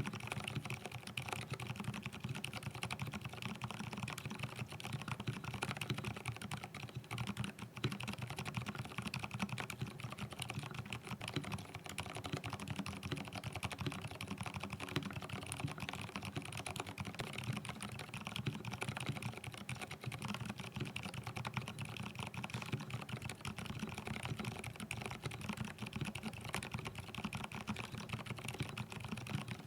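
Continuous typing on a mechanical keyboard fitted with lubed Gateron Silent Brown silent tactile switches, in a Groove T board with an aluminium plate: a dense, steady stream of keystrokes with no pauses.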